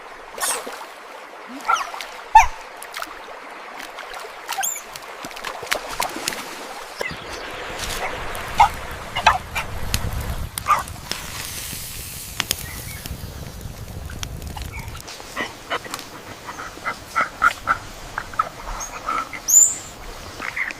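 Short animal calls amid scattered knocks and clicks, with a quick run of repeated short calls near the end.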